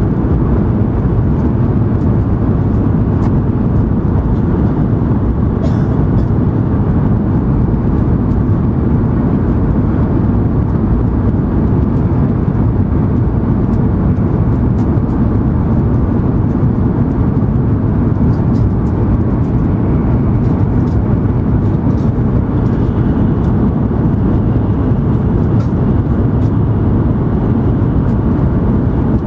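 Cabin noise inside an N700 series Shinkansen car travelling at speed: a steady low rumble and rush of wheels, track and air, with a few faint light clicks.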